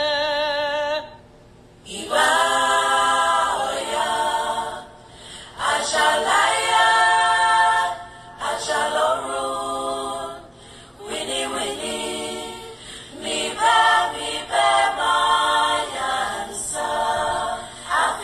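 Women's voices singing a song to the orisha Oya a cappella, in sung phrases of one to three seconds with short breaks between them; the opening note wavers with vibrato.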